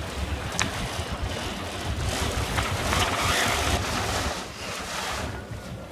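Wind buffeting the microphone on a sailing boat under way, a steady low rumble under a rushing hiss that swells between about two and four seconds in. A single sharp click sounds about half a second in.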